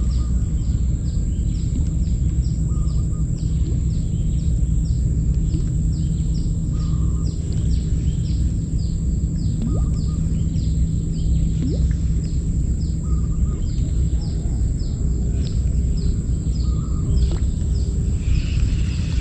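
Steady low rumble with a bird repeating short, high, falling chirps about twice a second, and a softer lower call every couple of seconds.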